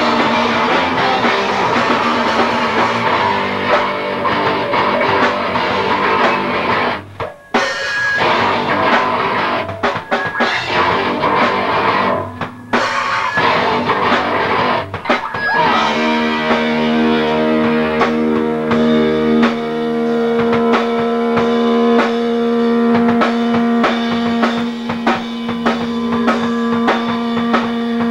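Live rock band playing loud distorted electric guitar and drum kit, with two brief stops about seven and twelve seconds in. From about halfway, a steady held guitar tone rings on over regular drum hits.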